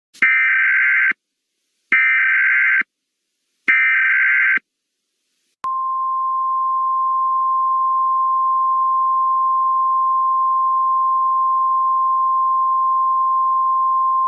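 Emergency Alert System SAME header: three short bursts of data tones, each just under a second, with brief gaps between them. About five and a half seconds in they are followed by the steady single-pitched 1050 Hz weather radio warning alarm tone, the attention signal that comes before a tornado warning message.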